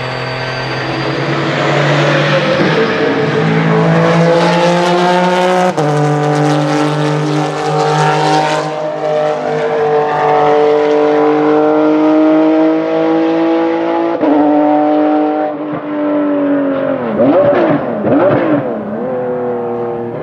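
Porsche 996 GT3 RSR's naturally aspirated flat-six race engine at full throttle, loud, its pitch climbing through the gears with two sharp upshifts. Near the end, a quick series of throttle blips on downshifts.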